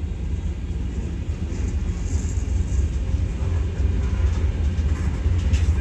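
Freight train of tank cars rolling through a grade crossing: a steady low rumble of wheels on the rails that grows a little louder.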